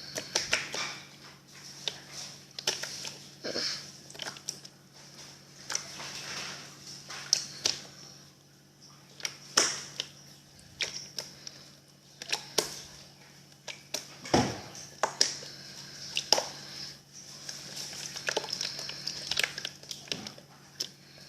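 Slime being squeezed and poked by hand, making irregular sticky crackles and small pops as air pockets burst.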